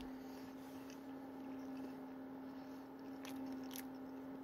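A person chewing a mouthful of sausage McGriddle, a soft pancake-bun sandwich, quietly with the mouth closed, with a couple of soft wet mouth clicks late on. A steady low hum sits underneath.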